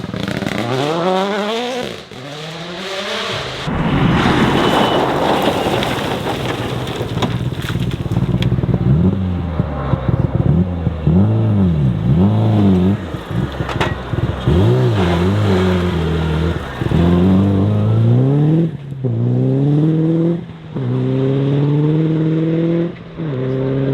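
Rally car engine revving hard. A few seconds in, a stretch of rough noise covers it. The revs then rise and fall quickly several times before the car accelerates through a series of gear changes, each upshift briefly cutting the sound.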